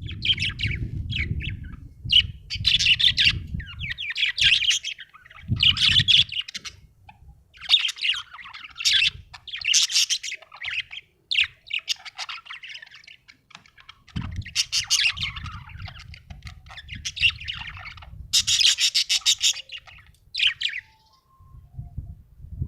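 Budgerigar chirping and warbling in quick runs of short, high chirps, pausing briefly between runs. A low rumble sits underneath at the start and again from about two-thirds of the way in.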